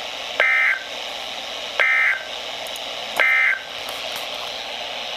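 Emergency Alert System end-of-message signal: three short, buzzy SAME data bursts about a second and a half apart, over a steady hiss.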